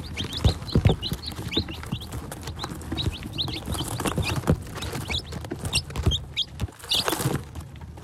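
A brood of newly hatched chicks peeping: many short, high cheeps overlapping throughout. Scattered knocks and rustles come from chicks bumping and scratching close to the microphone.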